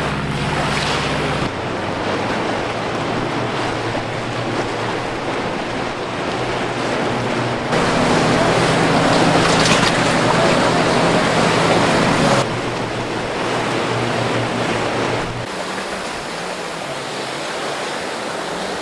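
Motorboat engines running over the rush of breaking waves and wind in rough inlet water, heard across several edited-together clips. The engine hum drops out near the end, leaving only surf and wind.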